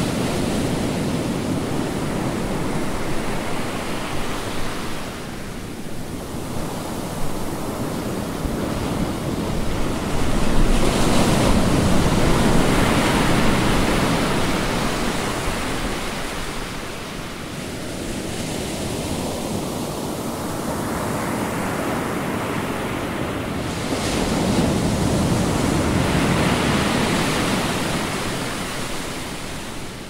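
Ocean surf breaking on a beach: a steady wash of waves, with a fresh wave crashing about ten seconds in and another about twenty-four seconds in, each fading out over several seconds as it runs up the sand.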